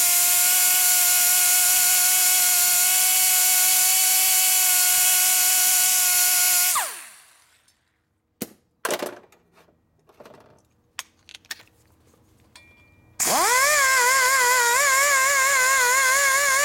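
A die grinder with a cutting burr spins at a steady high whine, then spins down and stops about seven seconds in. A few light clicks and taps follow, then the grinder starts again with a wavering pitch as it cuts into the cylinder head's port, removing a hump that left only about two threads of spark-plug clearance.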